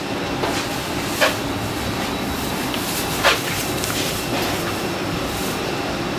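Steady rumbling noise inside an airport jet bridge during boarding, with a sharp knock about a second in and another a little after three seconds.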